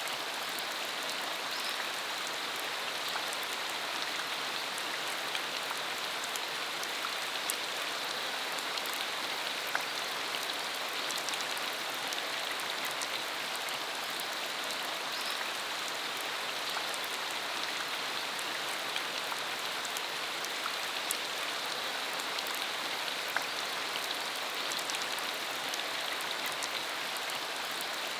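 Steady rain falling on a dirt country road, an even hiss with scattered sharper drop hits.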